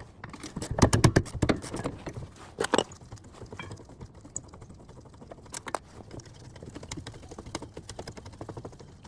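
Metal clicks and clanks of a half-inch ratchet with a 14 mm socket working on a car's rear brake: a quick run of ratcheting clicks and knocks in the first two seconds, two louder knocks a little later, then lighter, scattered ticking.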